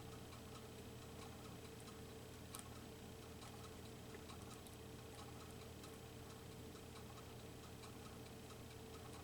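Small scissors snipping paper in short, slow cuts around a bird picture: faint, irregular clicks with a slightly sharper snip about two and a half seconds in, over a steady low hum.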